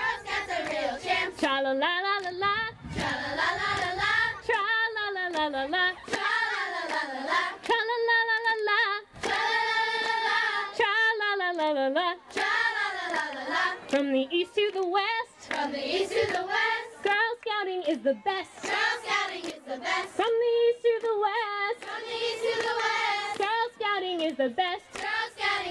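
Girls' chorus singing, led by a woman's voice, with hand clapping.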